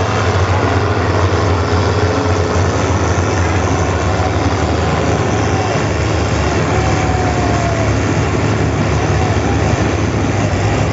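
MTZ Belarus tractor diesel engines running steadily with a deep, continuous hum.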